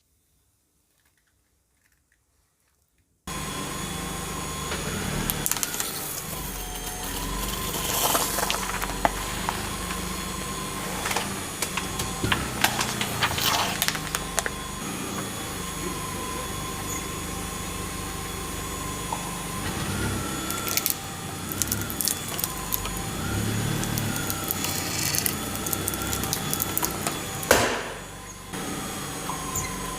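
Car rolling over objects with its engine running, and crunching and cracking as things break under the tyres. The sound starts suddenly about three seconds in after silence, with the loudest crack near the end.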